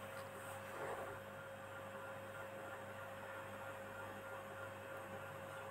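Faint steady electrical hum with a thin high tone over low hiss; the ladle stirring the pot is barely heard, as a soft brief sound about a second in.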